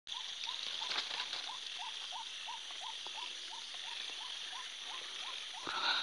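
Nighttime animal chorus: one animal repeats short rising chirps, about three a second, over a steady high-pitched insect buzz. A brushing rustle of leaves comes near the end.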